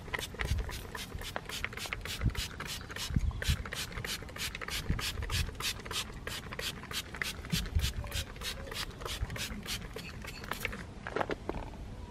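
Trigger spray bottle pumped rapidly, misting iron fallout remover onto a car wheel: about four short hissing spritzes a second. The spritzing stops near the end.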